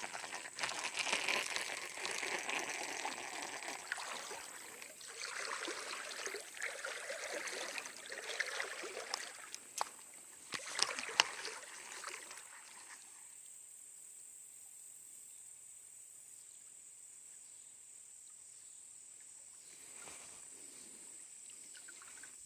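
Shallow creek water splashing and sloshing around someone wading, with sharp clicks and knocks, for about the first thirteen seconds; then only a quieter, steady trickle of flowing water.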